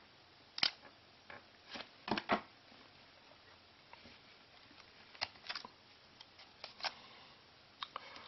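Scattered clicks and light rustles of a camera and its packaging being handled and unpacked. The sharpest click comes a little over half a second in, and a quick double click follows around two seconds.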